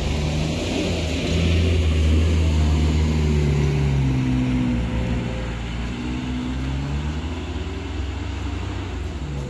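Small pickup trucks and cars driving past one after another, their engines' pitch sliding up and down as each goes by. Loudest between about one and four seconds in, as a loaded pickup passes close.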